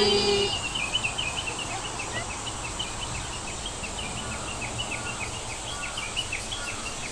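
Rapid, evenly repeated high chirping, several short chirps a second, over low background noise.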